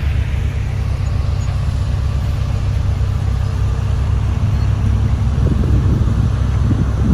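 Motor grader's diesel engine running steadily with a low hum, getting a little louder and rougher in the last couple of seconds.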